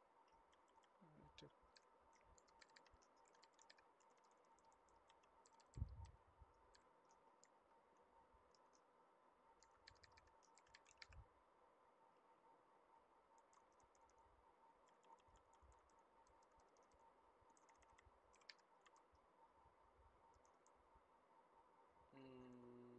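Faint computer keyboard typing in short bursts of clicks, with one low thump about six seconds in and a faint steady hum underneath.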